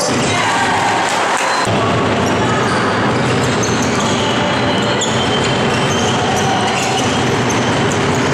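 Basketball game in a sports hall: the ball bouncing on the wooden court amid the players' movement, over a steady wash of echoing hall noise.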